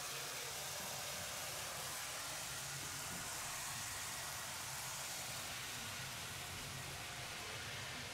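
H0 model train running along the track, an electric locomotive hauling rail-grinding wagons: a steady hiss with a low rumble underneath.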